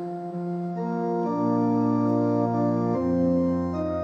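Organ playing held chords as the introduction to the responsorial psalm. The chords change about a second in and again near three seconds.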